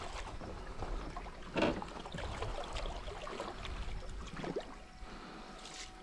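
Lake water splashing and trickling around a landing net lowered into the water to release a carp, with one sharp knock about one and a half seconds in.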